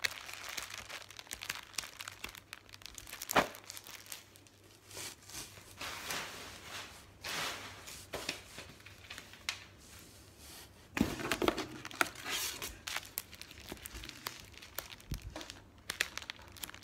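Packaged plastic stencils rustling and crinkling as they are lifted out of a cardboard box and flipped through, with a sharp clack about three seconds in and a louder clatter of handling around eleven seconds.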